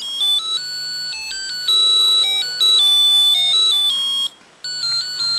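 IL66 (UM66-type) melody generator IC playing its built-in tune through a piezo buzzer: a string of shrill electronic beeping notes stepping up and down in pitch. The tune breaks off for a moment about four seconds in, then carries on.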